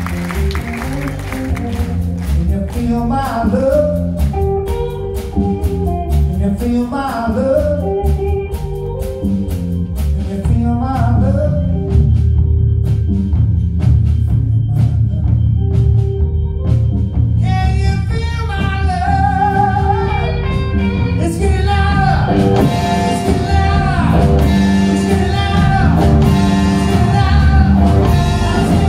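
Live rock band playing: drums, electric guitar, bass and keyboards, with a wavering lead melody coming in over the band about two-thirds of the way through.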